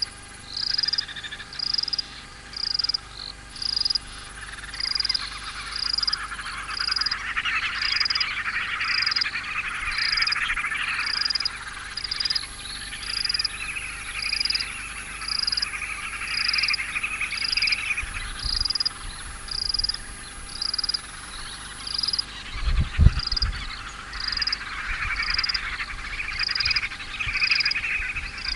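Frogs and insects calling: a short high note repeated about once a second over a rising and falling chorus and a thin steady high whine. A single low thump comes about three quarters of the way through.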